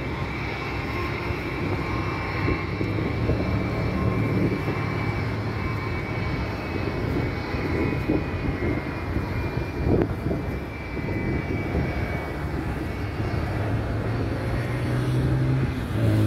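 Jet airliner's engines running at taxi power: a steady whine over a low hum, the hum growing louder near the end.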